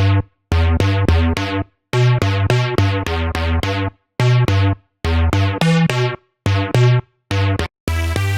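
SynthMaster One software synthesizer playing a preset through a sequenced riff of short, bass-heavy notes. Each note starts bright and quickly darkens, and the notes come in short phrases of two or three with brief gaps between.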